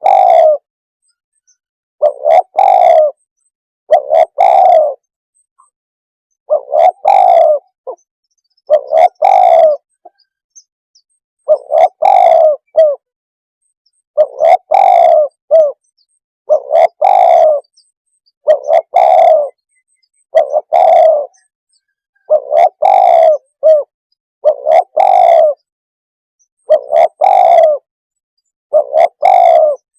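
Spotted dove cooing as a hunter's decoy call: the same short, loud coo phrase repeats steadily about every two seconds.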